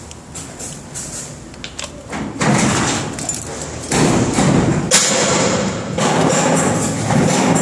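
Cadweld graphite mold being unclamped and pulled off a freshly made exothermic weld of copper cable to a steel beam: a few light clicks, then heavy handling noise with two sharp knocks about four and five seconds in.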